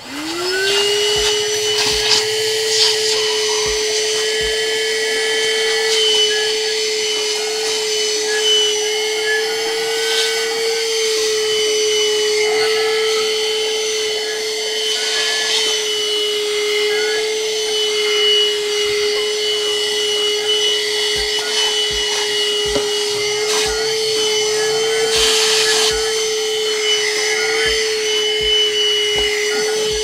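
AGARO CV1079 corded car vacuum cleaner (110 W motor) with a crevice nozzle, switched on and spinning up within about a second to a steady hum with a high whine above it, running while it vacuums dirt from a car seat. The motor starts to wind down at the very end.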